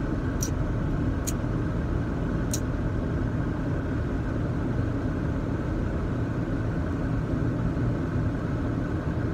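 Car driving on a snow-covered road, heard from inside the cabin: a steady low rumble of engine and tyres. Three short faint clicks come in the first three seconds.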